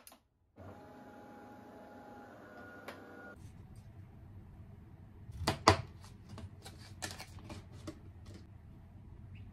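An espresso machine runs with a steady hum for about three seconds, then stops abruptly. Then a glass and a plastic cup are handled and set down on a counter, with a sharp knock about five and a half seconds in and lighter clicks after it.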